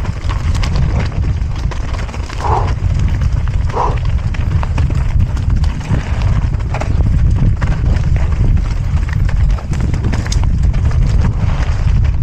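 Mountain bike rattling and clattering over rough trail ground at speed, with a steady low rumble of wind and ground noise on the camera microphone.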